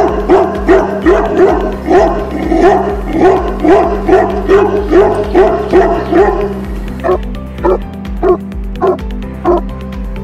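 Tibetan Mastiff barking: a fast, steady run of deep barks at about three a second, becoming more spaced out for the last few seconds, with background music underneath.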